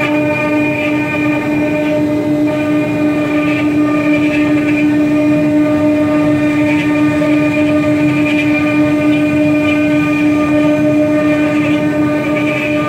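Four-spindle, four-axis CNC router carving wooden balusters: the spindles run with a steady, unchanging whine over the rough noise of the cutters working the turning wood.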